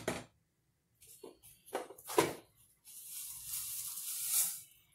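A wooden spoon knocks on a cooking pot a few times. About three seconds in, dry angel-hair noodles rustle for a second or so as they go into the pot.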